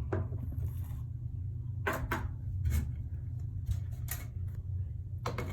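Light clicks and knocks of plastic containers, lid and poke stick being handled, about seven scattered taps, over a steady low hum.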